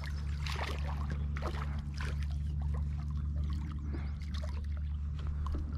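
Small largemouth bass thrashing and splashing at the surface beside a kayak as it is reeled in: a run of quick, irregular splashes over a steady low hum.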